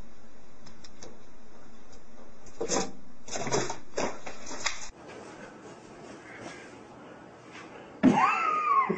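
A few short knocks and clicks over a steady hiss, then near the end a cat's loud, drawn-out meow that rises and falls in pitch.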